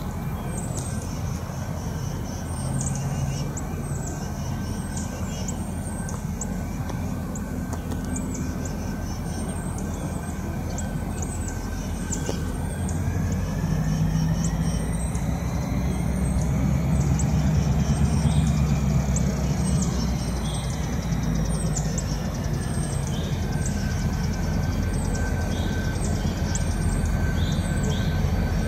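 A pair of EMD SD40-2 diesel locomotives (16-cylinder two-stroke engines) running light toward the listener, their low engine rumble growing louder as they approach. Short falling bird chirps repeat over it.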